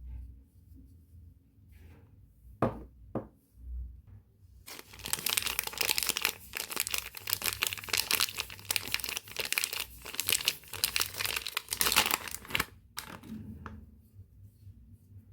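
Soap packaging being unwrapped: a couple of sharp clicks, then several seconds of dense crinkling and tearing of the wrapper that stops about two seconds before the end.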